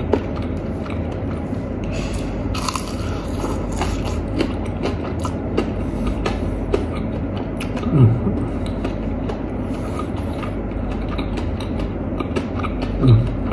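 Close-miked chewing of crispy fried chicken, with many small crunches and wet mouth clicks over a steady low hum. Two brief hums of the voice break in, about eight seconds in and again near the end.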